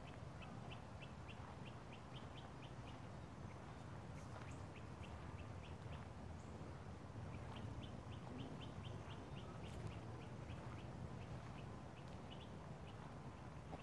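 A bird calling in rapid runs of short, high chirps, about five a second, over a steady low background rustle.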